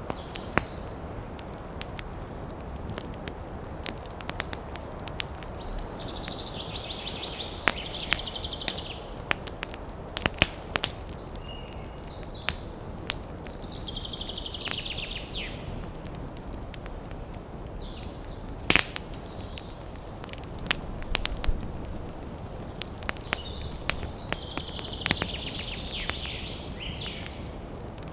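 Campfire crackling with frequent sharp pops, the loudest a little past the middle, over a steady rush. Three times, a high, rapid trilling call from a woodland creature rises above it, each lasting two or three seconds.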